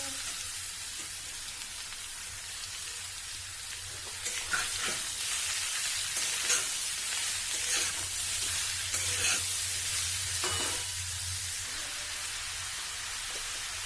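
Chopped bottle gourd sizzling as it fries in hot oil in a pan, with a spatula scraping and stirring it in a run of short strokes from about four seconds in until near the end.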